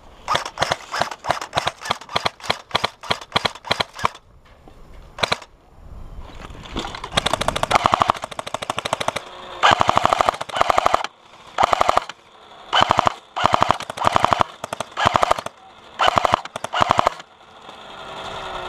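Electric airsoft guns firing. Single shots come at about four a second at first, then from about seven seconds in there are repeated full-auto bursts of about a second each, with the gearbox motor whine under the rattle.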